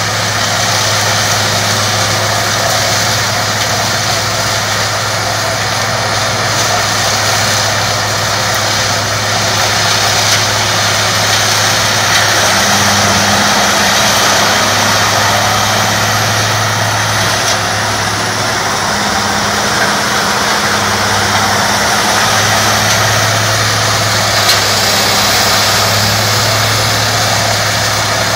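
Peterson 5900 diesel-powered drum woodchipper running steadily and loudly, with a constant low engine hum and a dense mechanical rush over it. A second, slightly higher hum comes and goes a few times.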